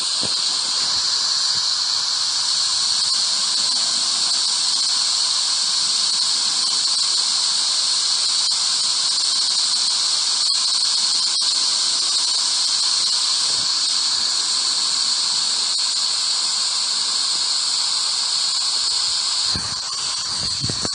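Steady, high-pitched hissing static from a ghost radio app, running without a break and easing slightly near the end.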